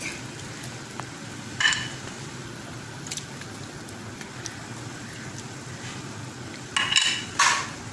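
Pot of chicken on the stove cooking with a faint steady sizzle, with a few short scrapes of a spoon against metal as tomato paste is spooned in and stirred; the loudest two scrapes come near the end.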